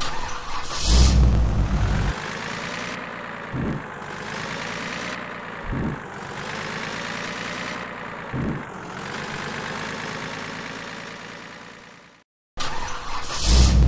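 Truck engine sound effect laid over the pictures: a loud low rumble about a second in, then the engine running with its pitch rising and falling and a short low thump every two to three seconds. It fades out near the end and starts over the same way.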